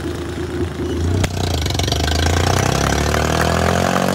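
A motor vehicle's engine running, then speeding up with its pitch rising steadily from about a second in. A single sharp knock comes just as the rise begins.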